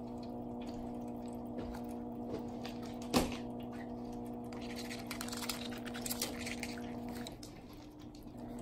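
A steady hum with a single sharp click about three seconds in, then a light pattering of a Munchkin cat's paws running across a wooden floor. The hum stops shortly before the end.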